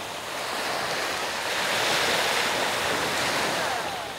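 Sea waves washing onto a pebble beach: one surge swells up to about halfway through, then falls away.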